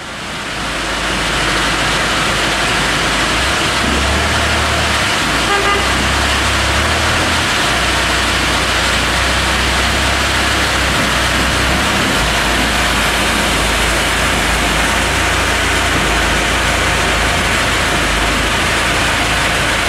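Diesel engine of a Manitou telescopic handler running under load, its low hum stepping up and down a few times as it handles a log. Over it is a steady wide hiss of machinery noise. The sound fades in at the start.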